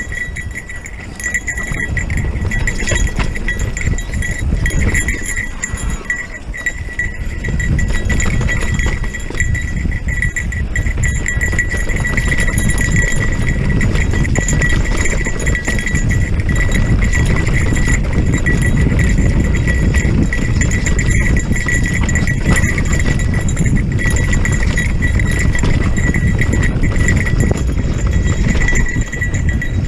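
Electric mountain bike ridden over rough, rocky trail: heavy wind rumble and rattling of the bike over the ground, with a steady high whine running underneath.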